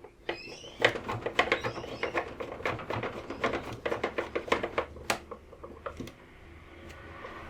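Screws being driven back into the plastic case of a UPS with a hand screwdriver: a quick run of clicks and small knocks, stopping about six seconds in.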